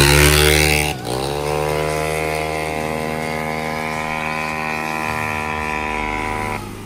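Motorcycle engine revving hard close by, its pitch climbing, then a motorcycle held at steady high revs down the road, the note rising slightly and then holding before it stops abruptly near the end.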